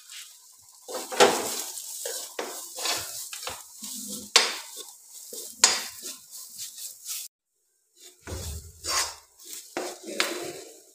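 Metal spoon scraping and clinking against a steel kadhai in irregular strokes, stirring a poha tempering of spices frying in oil.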